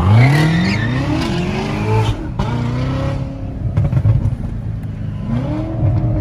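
Chevrolet Corvette C7 ZR1's supercharged 6.2-litre V8 accelerating hard, heard from inside the cabin: the engine note climbs steeply, drops at an upshift about two seconds in, climbs again and holds, then rises once more near the end.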